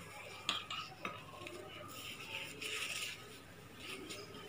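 Faint rustling of blouse fabric being handled and folded by hand, with a couple of light clicks in the first second.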